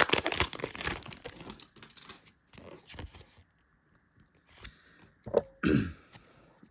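Foil Pokémon booster pack wrapper being torn open and crinkled: dense crackling for the first couple of seconds, then sparser, quieter rustles with a few short handling sounds near the end.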